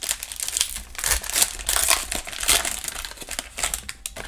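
Plastic wrapper of a trading-card pack being pulled open and crinkled by hand, a dense, irregular crackling that is loudest about one to three seconds in.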